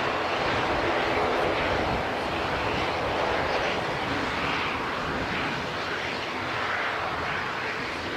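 Airbus A320 jet engines running at departure power: a broad, wavering roar that slowly fades.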